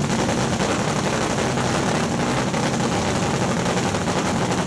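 Top Fuel dragster's supercharged nitromethane-burning V8 idling loud and steady.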